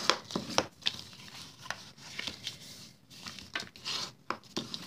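Bone folder rubbed along the score lines of a sheet of cardstock, burnishing the folds: a series of short, irregular scraping strokes.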